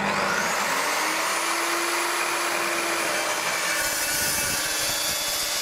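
DeWalt DW872 dry-cut metal chop saw starting with a rising whine, then running and cutting through a clamped steel strut channel with its carbide-tipped blade. The cutting noise grows fuller about four seconds in.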